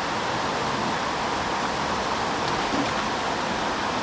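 Steady rush of creek water flowing through a fast run.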